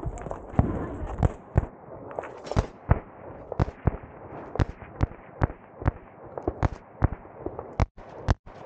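Kalashnikov USA KR-103 rifle in 7.62×39 firing a rapid string of about a dozen shots, some in quick pairs and others up to a second apart.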